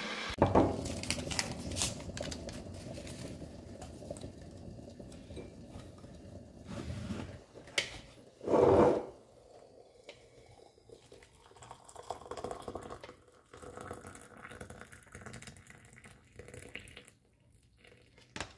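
Kitchen handling noises while making tea: a steady hiss at first, then clinks and knocks of dishes, rustling and scraping, with one louder short clunk about nine seconds in.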